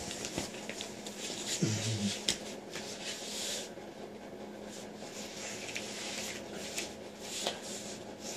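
Soft rustling and shuffling close to the floor as a man gets down and lies on the floor beside a crawling baby, with a few light taps and a brief low hum from the man's voice about two seconds in.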